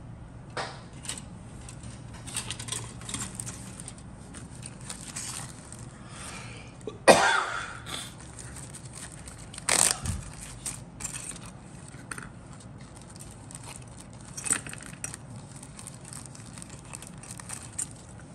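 Plastic zip-lock bag crinkling and rustling as it is handled and opened, with small plastic model kit parts clicking and clinking together. Two louder bursts of crinkling come about seven and ten seconds in.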